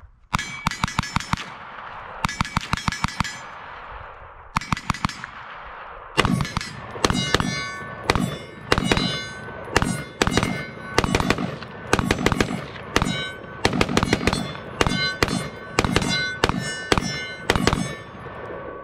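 Rifle fire at targets: quick strings of rapid shots in the first five seconds, then a steady run of single shots about two a second, many followed by a short metallic ring from a hit steel target.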